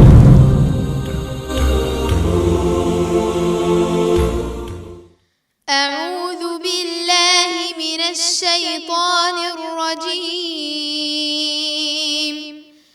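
A deep booming intro sting that fades away over about five seconds. After a brief silence, a young girl's voice begins melodic Quran recitation (tajweed), drawing out long, ornamented sustained notes.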